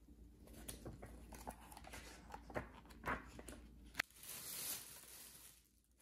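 Faint packaging handling: rustles and scattered light clicks and taps, then about four seconds in a brief, louder rustle of the plastic bag wrapped over the air fryer, dying away just before the end.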